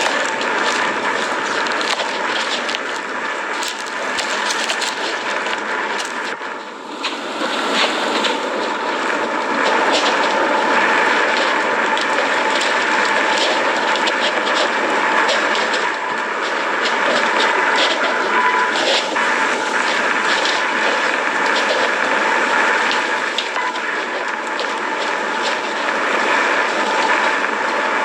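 A loud, steady rushing hiss with faint crackles, dipping briefly about seven seconds in. It is the unexplained 'strange sound from underground' that the uploader likens to a lot of steam or other gases being pushed to the surface.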